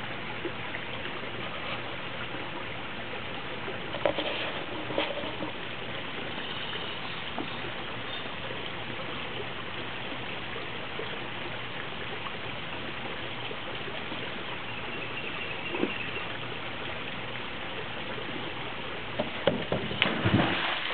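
Steady hiss of trickling, running water. Near the end, a diving board clatters a few times as the diver springs off it, followed by the splash of her entering the pool.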